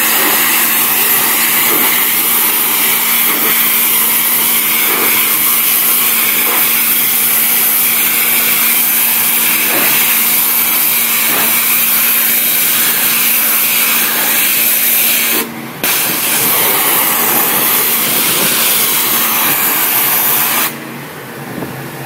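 Hot-water pressure washer at 3000 psi spraying, a loud steady hiss with a low hum running under it. The spray cuts out for a moment about 15 seconds in, then stops near the end, leaving only a quieter steady noise.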